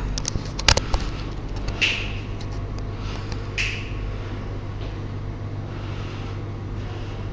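Steady low hum of room tone, with a few sharp clicks about a second in and two short rustles, one near two seconds and one a little after three and a half.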